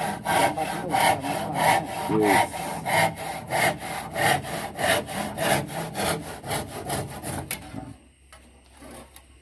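Handsaw cutting through a wooden wall board, trimming its bottom end, in quick even back-and-forth strokes, about three a second; the sawing stops about seven and a half seconds in.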